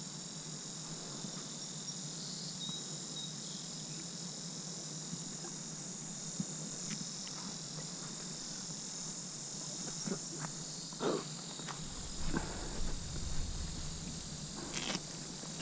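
Insects in the summer vegetation keep up a steady high-pitched buzzing chorus. A few light knocks and a short low rumble come near the end.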